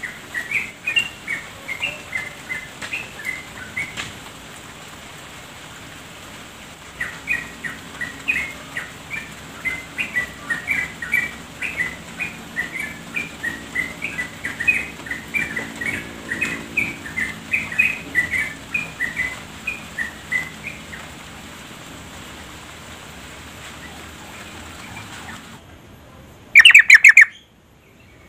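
Female yellow-vented bulbul (trucuk) chattering: quick runs of short notes, a first short run, then after a pause of about four seconds a long run lasting some fourteen seconds. Near the end a single brief, very loud cry cuts in.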